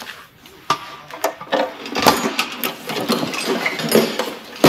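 Ornate metal casket being handled on a table: rapid metallic clicking and rattling.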